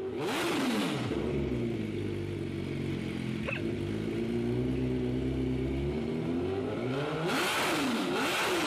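MV Agusta F4 sportbike's inline-four engine revved by hand on the stand, through an aftermarket twin-muffler exhaust: a sharp blip of revs at the start, steady running in between, and a second burst of revs near the end.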